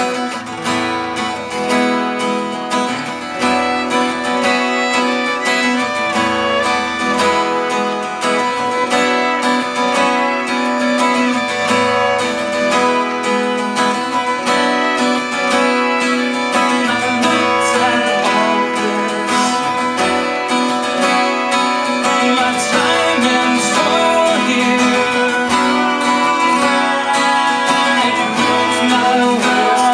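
Acoustic band music: two acoustic guitars strumming a steady rhythm with a violin playing over them.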